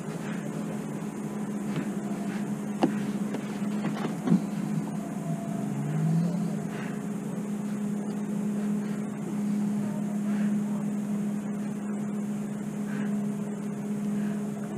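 Steady motor hum with a constant low tone, with two sharp knocks about three and four seconds in.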